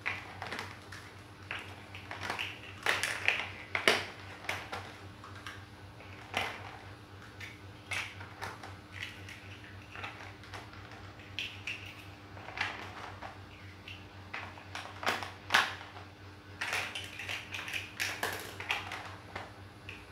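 Large plastic Lego-type bricks clicking and clattering as they are picked up and pressed onto a brick model, in irregular clusters of sharp snaps. A steady low hum runs underneath.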